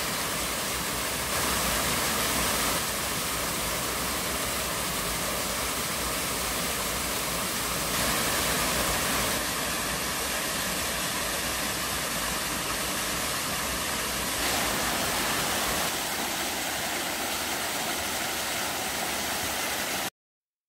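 Small waterfall's two streams splashing into a rock pool: a steady rush of water. The level steps up and down slightly several times and cuts off suddenly just before the end.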